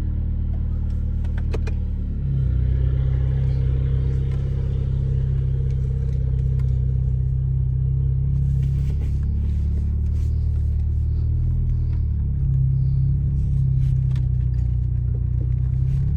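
Acura TLX's 2.0-litre turbocharged four-cylinder running through a straight-piped downpipe and deleted muffler: a steady low exhaust drone whose pitch steps up slightly about two seconds in and shifts again near twelve seconds.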